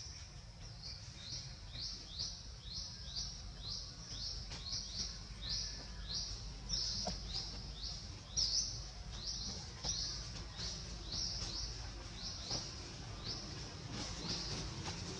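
A bird calling over and over, a short high note that drops sharply in pitch, about twice a second, over a low steady rumble.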